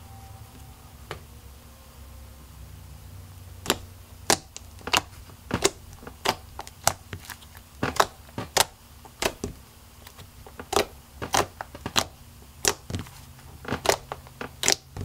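Butter slime made with air-dry clay being poked and stretched by hand, giving sharp pops and clicks about twice a second, starting a few seconds in.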